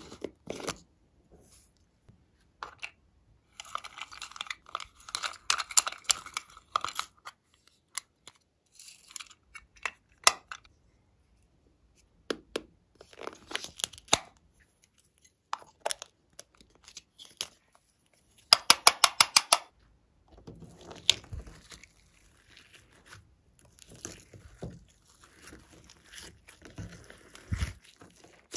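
Close-up handling sounds: plastic toy containers clicked and crinkled, then scissors cutting into a squishy mesh ball, with a quick run of about ten sharp clicks about two-thirds of the way through. Softer, lower squishing of slime in the last several seconds.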